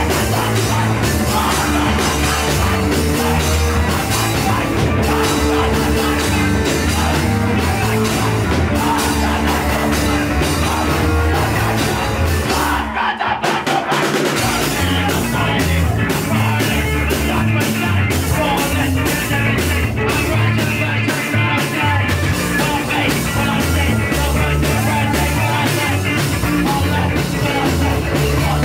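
Hardcore punk band playing live: loud, fast music with heavy bass and rapid drumming, broken by a short stop about 13 seconds in before the band comes back in.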